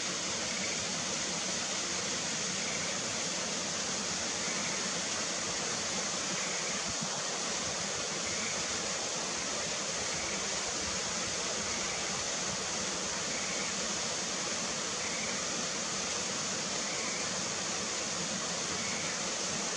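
Schlegel's green tree frog calling faintly, a short call about every two seconds, over a steady rush of falling water.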